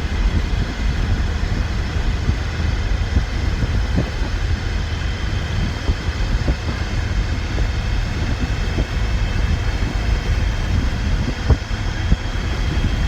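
Steady low road and drivetrain rumble inside a moving Ford Ranger's cab with the rear window out, with a few small bumps and knocks. It is the noise the owner suspects comes from a failing input bearing on the rear differential.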